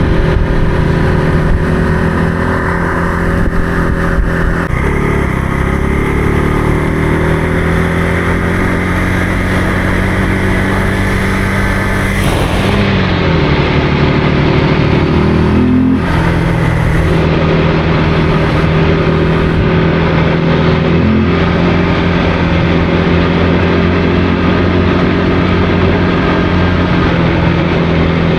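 Motorcycle engine running under way at a fairly steady speed. The engine note drops about twelve seconds in, climbs sharply around sixteen seconds, then settles back to a steady pitch.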